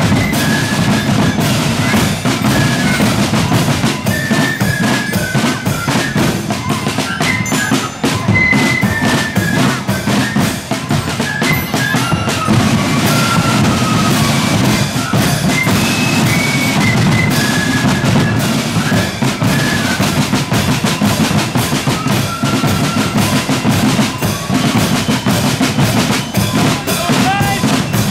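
Marching flute band playing a march: rapid snare drum rolls and beats over a steady bass drum, with flutes carrying a stepping melody of clear high notes above the drums.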